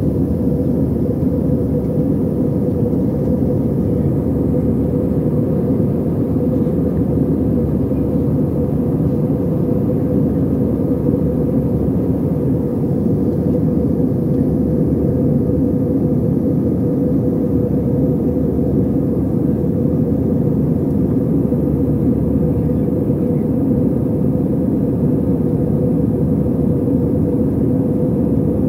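Jet airliner cabin noise in flight, heard from a window seat: a steady, even rumble of the engines and airflow with a constant hum.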